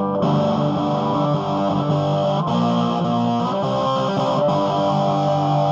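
Electric guitar played through a Marshall Lead 12 solid-state combo amp with its gain all the way up: distorted, sustained chords and notes.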